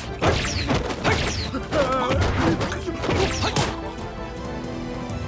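Fight-scene sound effects: a series of punch and body-impact hits with quick whooshes and a wavering cry, over background music that carries on alone with held tones near the end.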